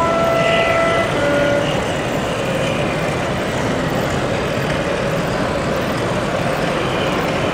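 Two-tone horn of a sound-fitted O gauge model diesel multiple unit, a higher note for about a second and then a shorter lower one, as the unit moves off. A steady exhibition-hall hum and the model's low engine sound run underneath.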